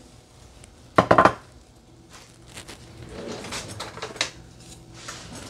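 A glass prep dish clatters briefly against a stainless steel sauté pan about a second in, as diced onion and jalapeño are scraped into melted butter. Faint scattered clicks and a low hiss follow from the pan.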